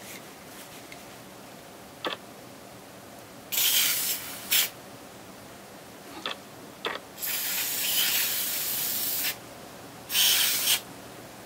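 Boeshield T-9 rust inhibitor sprayed onto metal impact sockets in several hissing bursts: a one-second spray, a short one, a long one of about two seconds, and a final short one, with a few light clicks between them.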